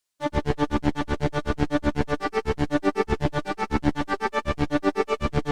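Cherry Audio DCO-106 software synthesizer, an emulation of the Roland Juno-106 polysynth, playing a patch dry. It plays a fast, even run of short plucky notes, about a dozen a second, in a shifting arpeggio-like pattern that starts abruptly a moment in.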